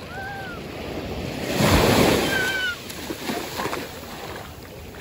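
Shallow sea water splashing and sloshing around a child's legs as she wades, with a louder rush of water about a third of the way in. A few short, high-pitched chirps are heard over it.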